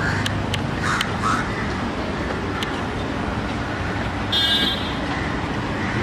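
Steady street and traffic noise, with a few sharp clicks in the first three seconds and a brief high-pitched call about four seconds in.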